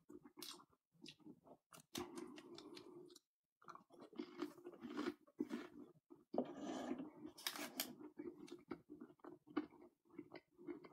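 A person chewing crispy chicken nuggets close to the microphone: soft crunches and wet mouth sounds in irregular bursts, with short pauses.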